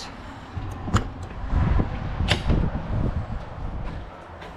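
Footsteps up a travel trailer's entry steps and its entry door being handled: dull low thumps with a few sharp clicks, the sharpest a little over two seconds in.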